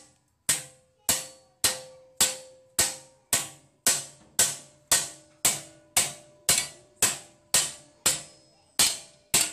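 Hammer blows on a steel sheet clamped over angle iron in a vise, bending a box side along its fold. Steady strikes just under two a second, each with a short metallic ring.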